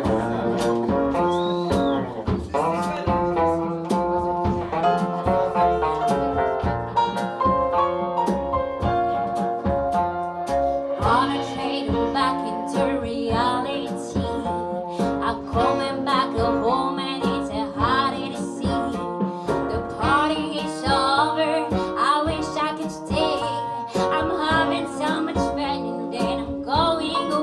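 Live band of electric guitar, saxophone, piano, double bass and drums playing a blues number, with bending, sliding lead notes over an even beat from about a third of the way in.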